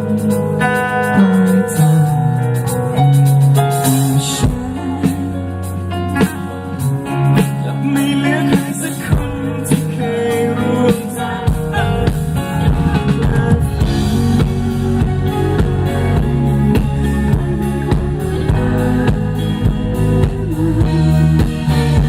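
Live band playing an instrumental passage of a Thai pop-rock song, with guitar and held chords at first and the drum kit and bass coming in about ten seconds in.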